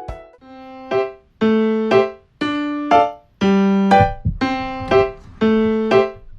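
Background music: a keyboard or electric piano playing a slow line of single struck notes, one about every half second to a second, each note dying away.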